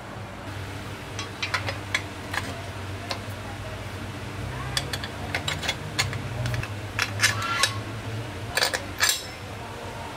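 Scattered light metallic clinks and taps as steel motorcycle parts are handled and fitted, a steel bracket plate set against the frame beside the engine. A low steady hum runs underneath.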